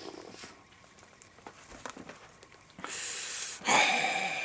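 Faint small clicks, then a breathy exhale about three seconds in, followed by a short, louder breathy vocal sound near the end.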